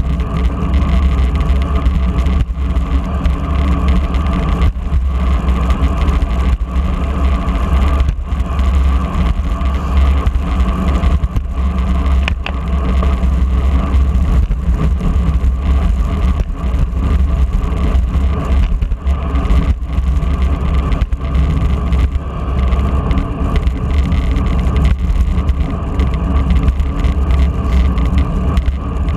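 Steady rush of wind buffeting a bike-mounted camera's microphone while a road bicycle rides at speed, with a constant hum of the ride along the road. A brief thin whistle-like tone cuts through about twelve seconds in.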